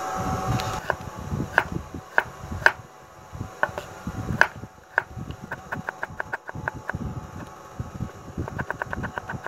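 Kitchen knife chopping green bell pepper on a wooden cutting board: scattered knife knocks against the board, then a quick run of rapid chops near the end.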